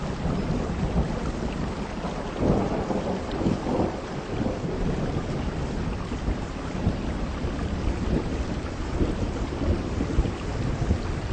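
Heavy rain pouring steadily under a deep low rumble that swells about two and a half seconds in and then eases.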